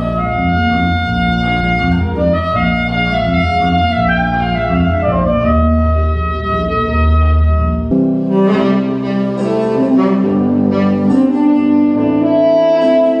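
Saxophone playing a slow melody of long held notes over a recorded accompaniment with a deep bass. About eight seconds in, the deep bass drops out and a new passage begins.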